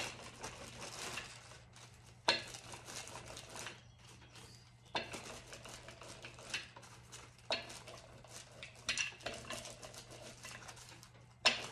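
A hand brayer rolled back and forth over decoupage paper through a sheet of plastic film on a wooden board: soft rolling and rustling, broken by half a dozen sharp clicks.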